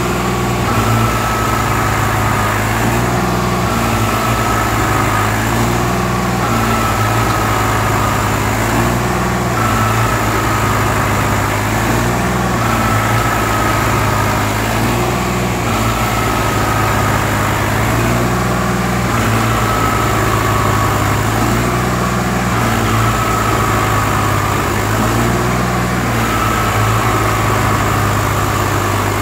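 Swaraj 855 tractor's three-cylinder diesel engine running under heavy load as it tows loaded sugarcane trailers through deep mud. The sound rises and falls in a regular cycle about every three seconds, with a short falling whine each time.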